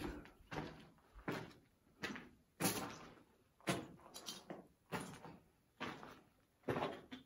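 Footsteps on a gritty, debris-strewn concrete floor at a walking pace, about one step every three-quarters of a second.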